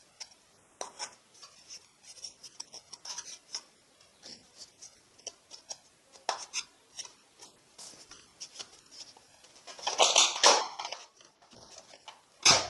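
Small plastic clicks and knocks as foam darts are pushed one by one into the drum of a plastic toy dart blaster. A louder clatter of plastic handling comes about ten seconds in.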